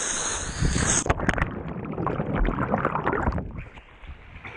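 Rushing air at first, then an action camera plunging into lake water about a second in: a splash, followed by muffled underwater bubbling and churning. It settles and breaks back to the surface near the end.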